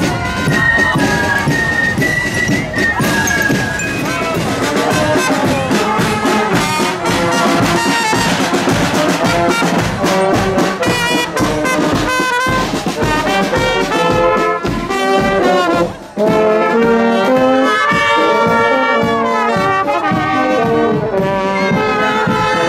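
Brass band music: a tune of held notes played over drum strokes, with a short break about two-thirds of the way through.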